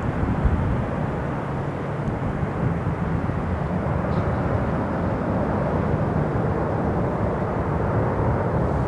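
Jet airliner's engines heard outdoors as a steady deep rumble, even in level throughout.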